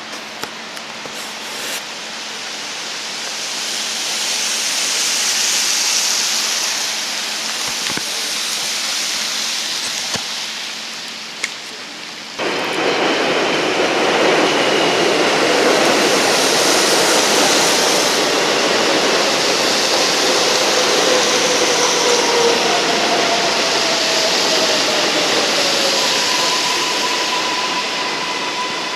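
Street traffic: a steady hiss of vehicles passing in swells, jumping suddenly louder about halfway through, with faint whining tones over the noise after that.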